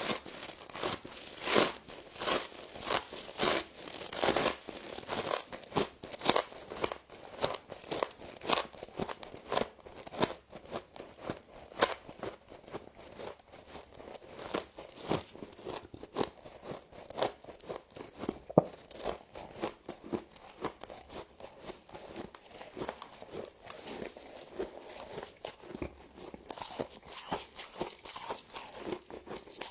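Humidifier frost crunching as it is bitten and chewed close to the microphone: many sharp, irregular crunches, the loudest and most spaced in the first ten seconds, then quicker and softer.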